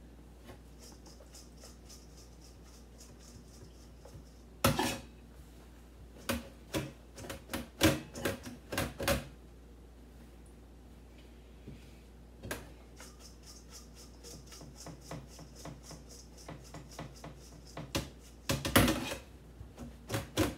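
A metal colander of rinsed broccoli knocking and clattering in a stainless steel sink as it is handled and the broccoli is patted dry with paper towel. The sharp clacks come in two clusters, one about five seconds in and one near the end.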